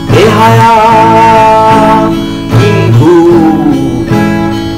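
A man singing one long held note, then a shorter sung phrase about three seconds in, over a strummed acoustic guitar.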